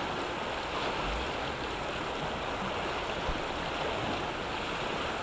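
Steady rush of river rapids: fast whitewater churning past, an even noise with no breaks.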